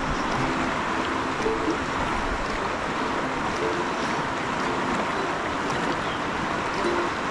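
Rush of a fast, swollen river running over a rocky riffle: a steady, unbroken wash of water, high after days of heavy rain.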